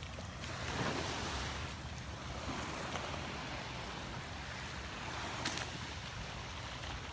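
Small, gentle waves breaking and washing up the sand at the water's edge, the wash swelling and easing, loudest about a second in. Underneath is a low steady rumble of wind on the microphone.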